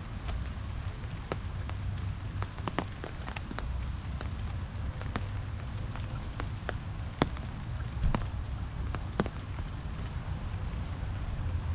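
Steady rain falling, with scattered drops ticking close by at irregular intervals and a low rumble underneath.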